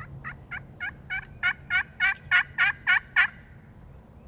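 A run of about a dozen wild turkey yelps, each note breaking from high to low, at a steady pace of about three a second. They grow louder as the series goes on and stop about three seconds in.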